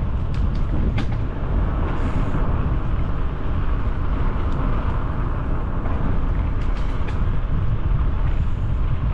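Wind buffeting the microphone of a helmet-mounted GoPro while cycling, a steady deep rumble with the hiss of riding along a lane beneath it. A few light clicks come through, about half a second in, at one second, and twice around seven seconds.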